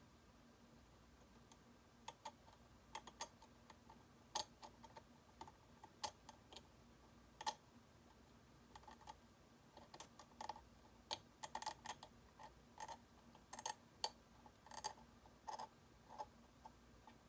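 A steel McCall 13/14 universal curette clicking and scraping against the plastic teeth of a typodont during hand scaling. The clicks are sharp and irregular, some single and some in quick clusters. They start about two seconds in and stop shortly before the end.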